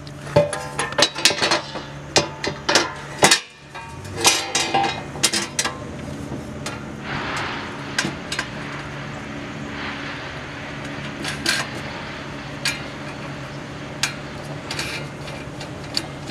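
Metal belt cover of a Scag V-Ride II mower being fitted back into place by hand: a quick run of metal clanks and rattles in the first few seconds, then scattered clicks and taps as it is seated.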